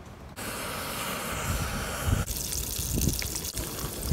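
Cooking on a two-burner camp stove: asparagus sizzling in a frying pan beside a pot of water on the heat. The sound comes in suddenly and changes character about two seconds in. Low thumps of wind on the microphone come now and then.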